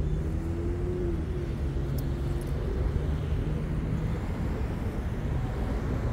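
Steady low rumble of nearby motor traffic with a constant engine hum, and a brief engine note that rises slightly and fades about a second in.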